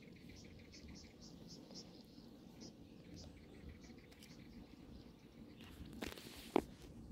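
Faint outdoor ambience with series of short, high chirps repeating a few times a second. About six seconds in comes a short rustling burst, then a single sharp click, the loudest sound.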